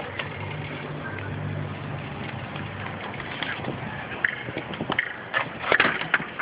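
Knocks and clattering of a large animatronic skeleton prop and its frame being lifted upright by hand, coming in a quick irregular run from about four seconds in. A low steady hum is heard in the first couple of seconds.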